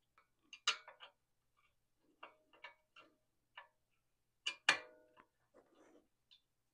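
Steel combination wrench clinking against a hex bolt on an aluminium motorcycle oil pump housing held in a bench vise: scattered light metal clicks, with a ringing clink about four and a half seconds in the loudest.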